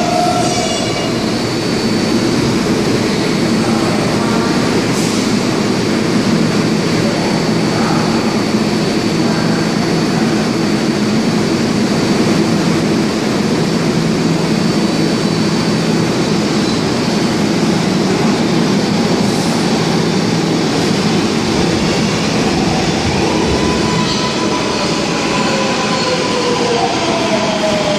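A New York City subway train rumbles steadily as it comes up the tunnel and pulls into the station. In the last few seconds its motor whine rises, then falls in pitch as it brakes.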